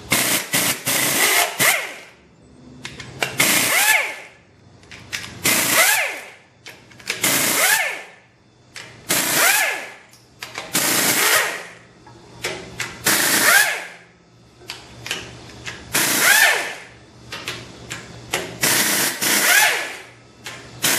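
Handheld pneumatic ratchet spinning in short bursts, about ten across the stretch, each about a second long with a whine that rises and falls in pitch, as it runs out the rocker arm hold-down bolts on a 24-valve common-rail Cummins cylinder head.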